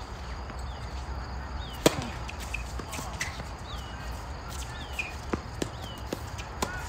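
Tennis ball struck by rackets during a doubles point: a sharp hard serve hit about two seconds in, then several lighter racket hits and ball bounces at uneven intervals. A few short high squeaks come in between.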